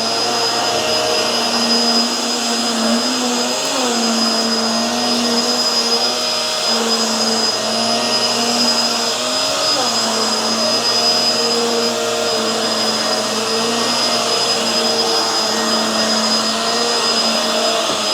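Hoover Tangle Gard upright vacuum cleaner running steadily on carpet as it is pushed back and forth picking up kitty litter, its motor pitch dipping briefly a couple of times.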